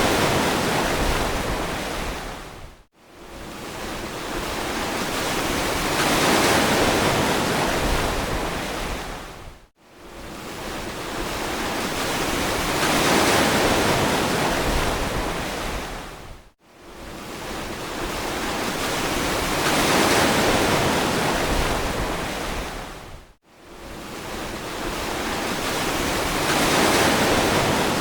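Ocean surf: waves swelling and washing in about every seven seconds, each fading out almost to nothing for a moment before the next.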